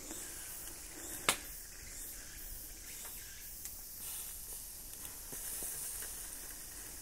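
Chicken yakitori skewers sizzling steadily on a grill, freshly basted with tare sauce. One sharp click about a second in.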